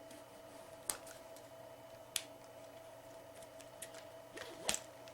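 Small handling clicks and taps as a biothane-coated webbing strap with a plastic clip end is threaded through a remote training collar's receiver: one click about a second in, another about two seconds in, and a few more near the end, over a faint steady hum.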